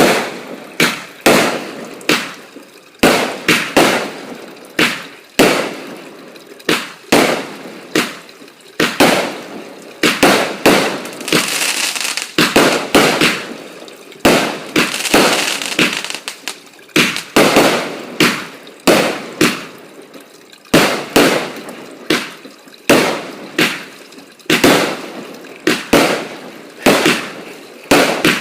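Fireworks going off: a long, irregular run of sharp bangs, about one or two a second, with short bursts of crackling between them.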